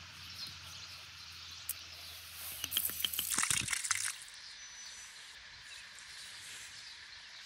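Water glugging and splashing out of a glass bottle tipped neck-down, for about a second and a half a few seconds in; otherwise faint outdoor ambience.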